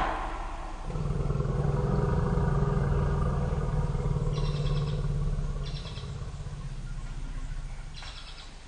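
African forest elephants rumbling in alarm after being startled: a long, low rumble starts about a second in and fades after about five seconds, trailing off quieter toward the end.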